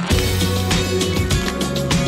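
Background music, with a bass line coming in right at the start.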